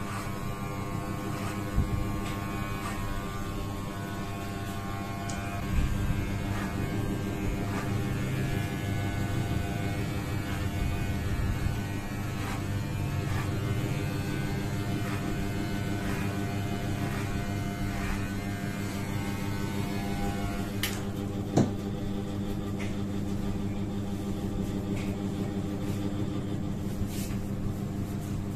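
Electric hair clippers running with a steady hum while cutting short hair over a comb, with a few light clicks and one sharper click about two-thirds of the way in.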